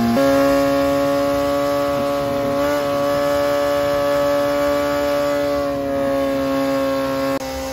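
Honda CBR600RR inline-four race engine running on a chassis dyno during break-in. Its revs step up from about 7000 to about 8000 rpm right at the start and then hold steady. The loudness drops suddenly near the end.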